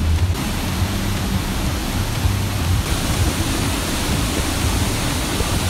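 Waterfall pouring over rock ledges into a pool: a steady, loud rush of falling water, getting hissier about three seconds in.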